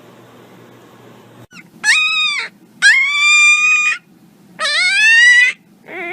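A dog giving three long, high-pitched whining howls, each rising in pitch. A lower, wavering call starts near the end.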